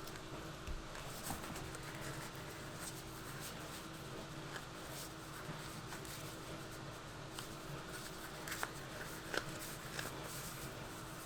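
Faint scratchy rustling of hands handling and pressing a neoprene glove, with a few small clicks, the sharpest about two thirds of the way in, over a steady faint hum.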